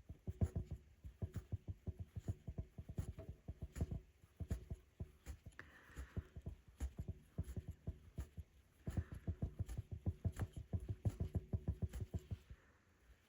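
Hand rug hook pulling loops of wool through backing fabric: a quick, steady run of soft pops and scratches, several a second, with a brief pause about two-thirds through.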